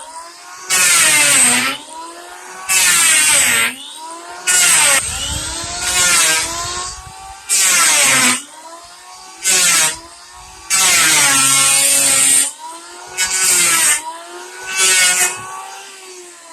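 Electric wood planer running, with about nine passes over wood: each cut is a loud burst of shaving noise lasting about a second, and the motor's whine between cuts dips and recovers in pitch as the load comes and goes.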